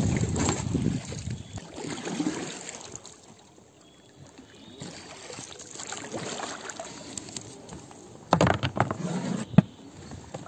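Water sloshing and splashing around a small boat moving down a river, with a cluster of knocks against the boat near the end, the last one sharp.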